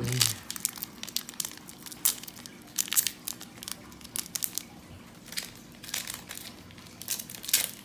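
Foil wrapper of a Pokémon TCG booster pack crinkling and tearing as it is worked open by hand, in irregular sharp crackles; the pack is a bit hard to open.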